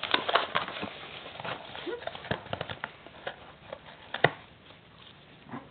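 Dog chewing and gnawing at a small wireless mouse box: irregular crackles and clicks, with one sharper snap about four seconds in.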